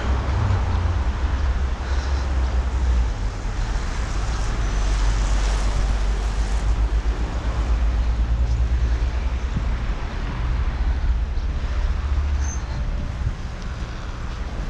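City street ambience: a steady hiss of road traffic over a heavy, fluctuating low rumble of wind buffeting the microphone.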